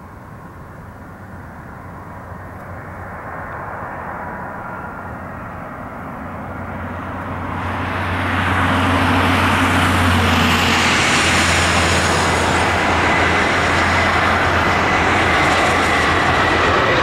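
Airbus A320 jet airliner on landing approach, its engines growing steadily louder as it nears, then loud from about halfway through as it passes close. It is a broad rushing roar with a thin high whine running through it.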